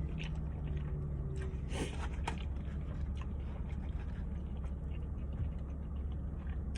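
A person chewing and biting a steak and cheese sandwich, with wet mouth clicks scattered through, strongest about two seconds in. A steady low hum runs underneath.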